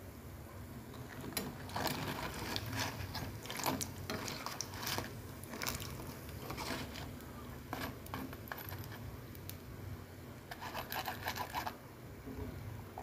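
Crackers crackling in hot frying oil, with irregular clicks and scrapes of a metal wire-mesh strainer against the pan as they are scooped out. A quick run of small clicks comes a little before the end.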